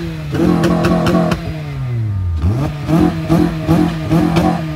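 Car engine revved hard, held at a steady peak in quick repeated stutters. About halfway the revs drop away for a moment, then climb back and the stuttering resumes.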